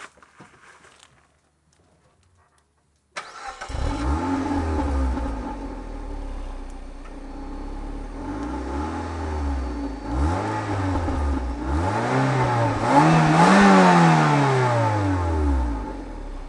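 Suzuki Swift Sport's four-cylinder engine on its stock exhaust, already warm, starting about three seconds in and settling to idle. It is then blipped several times, each rev rising and falling back; the last rev is the highest and loudest and falls slowly back to idle near the end.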